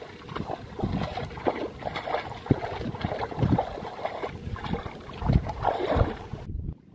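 Shallow muddy water sloshing and splashing in irregular bursts with dull thumps, as hands and legs churn through it while groping for fish. About six and a half seconds in, the sound drops off and turns dull.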